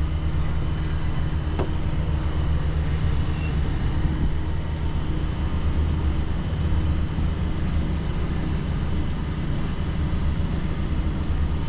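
Twin Yanmar 57 hp marine diesel engines of a sailing catamaran running steadily at about 2,200 RPM, a low even hum.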